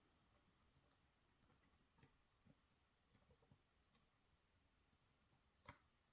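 Faint, sharp metallic clicks from lock picks working in a KIK lock cylinder, a few scattered ticks with the loudest about two seconds in and near the end. This is the pick and tension wrench being reset as the pins are dropped back for a fresh picking attempt.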